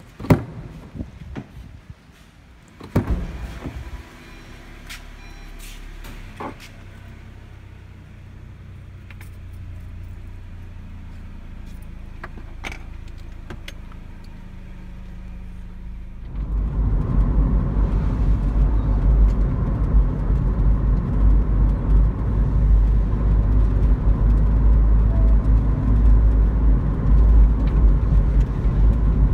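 A few knocks and clicks of a car door and keys, then a car engine running quietly; about sixteen seconds in, a loud steady low rumble of engine and road noise from the Toyota Innova being driven, heard inside the cabin.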